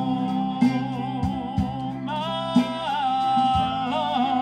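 Live band music: a man sings long held notes with vibrato over electric guitar and a drum kit, the voice stepping to new pitches every second or so.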